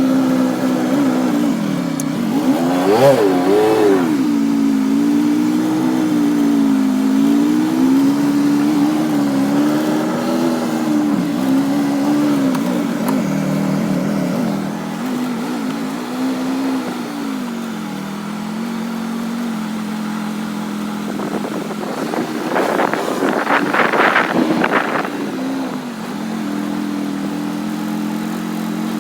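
An engine running steadily, its speed rising and falling. A louder, rougher surge comes a little after twenty seconds in.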